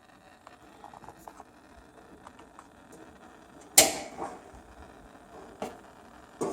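Gas heater controls clicking: a few faint clicks, then one loud sharp snap about four seconds in, and two more sharp clicks near the end.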